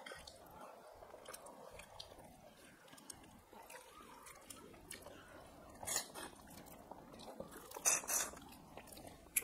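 Close-up eating sounds of people chewing mouthfuls of rice and fish curry eaten by hand, with a couple of sharper, louder mouth noises around six and eight seconds in.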